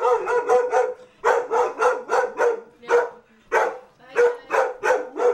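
A dog barking over and over in an excited frenzy: a fast run of sharp barks, two to four a second, with a couple of short pauses.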